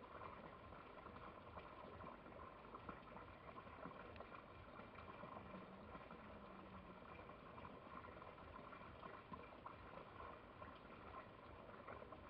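Near silence: a faint, steady crackling hiss.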